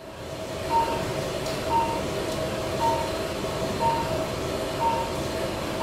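Patient monitor's pulse beep: a short, high beep about once a second, in time with a heart rate near 60, over a steady machine hum.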